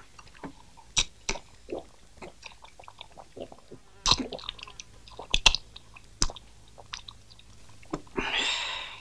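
A man eating: chewing and smacking, with many short sharp clicks. Near the end comes a longer rushing sound of drinking from a bottle.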